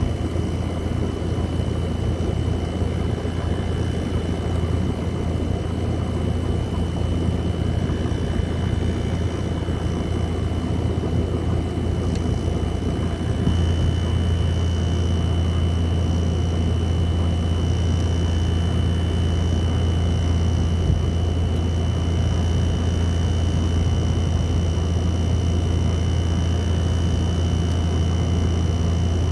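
2024 Midea 5,000 BTU window air conditioner running: a steady low hum under an even fan rush, with a thin high tone above. The hum grows slightly louder a little under halfway through.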